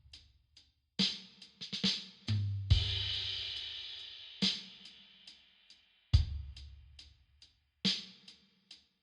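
Sparse lofi drum beat: kick drum hits with light, regular hi-hat ticks, and a cymbal crash about three seconds in that rings out slowly.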